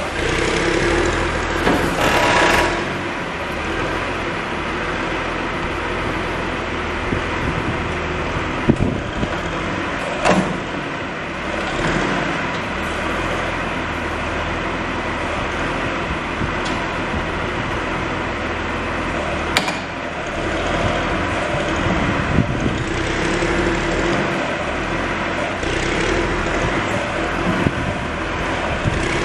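John Deere 710 backhoe loader's diesel engine running steadily during start-up checks, with a few sharp knocks and clanks from the machine.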